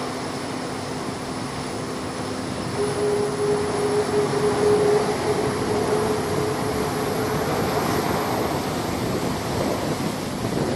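KC-135 Stratotanker's jet engines running at taxi power as the aircraft rolls past. The engine noise is a steady hum and hiss that grows louder about three seconds in, with a held tone over it for about five seconds.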